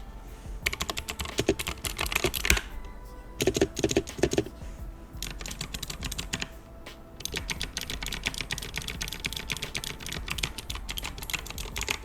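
Typing on a Drop Shift mechanical keyboard for a sound test: fast runs of key clacks, a few heavier, deeper key strikes about four seconds in, then a short pause before the typing picks up again.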